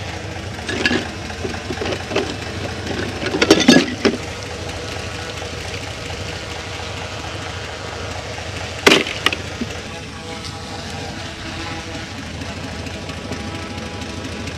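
Dry marsh reeds and grass crackling and snapping underfoot in short bursts, loudest a few seconds in, with one sharp crack near the middle. An engine idles low and steadily underneath.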